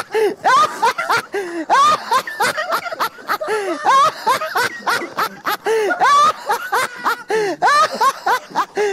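A man laughing hard and without pause, in rapid high-pitched bursts that rise and fall, about two a second, with breathy gasps between them.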